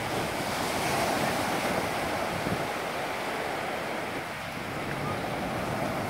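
Small waves breaking and washing up over a sandy shore: a steady surf wash.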